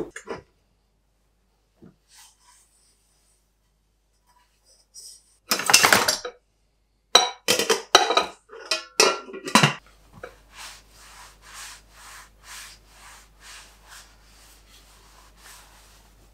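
Kitchenware handled at a dish rack: a loud rattle about five seconds in, then several sharp clanks of a saucepan and its glass lid. After that comes a run of even rubbing strokes, about two a second, as a dish is dried with a cloth tea towel.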